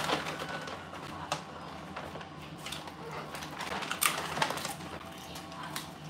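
Scattered light clicks and taps, uneven in timing, from a white cockatoo's claws on a stone kitchen countertop as it walks along. The loudest tap comes about four seconds in, over a faint steady room hum.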